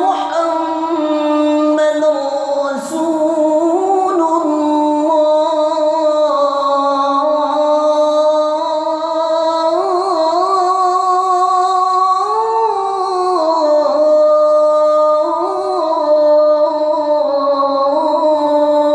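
A muezzin's voice chanting the adhan, the Islamic call to prayer, in one long melismatic line: a held note that bends into wavering ornamental turns up and down, with brief breaks for breath.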